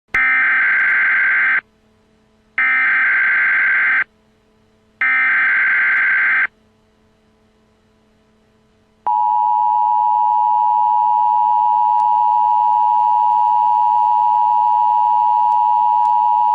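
Emergency Alert System header: three bursts of digital data tones, each about a second and a half long with short gaps between, then after a pause the steady two-tone attention signal that holds to the end. The sequence announces a new emergency alert.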